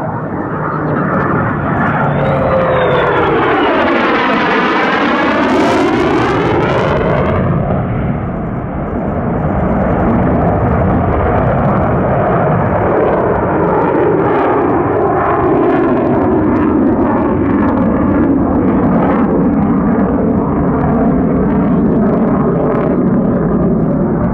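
F-35A Lightning II's single Pratt & Whitney F135 jet engine in flight: loud jet noise with a phasing whoosh that sweeps down and back up in pitch as the jet passes, about two to eight seconds in, then settling into a steady jet noise.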